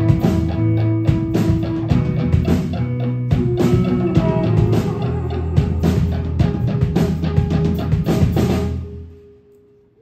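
Live rock band playing the closing bars of a song: electric guitar, keyboard and drums. The music stops about nine seconds in, and the last notes die away.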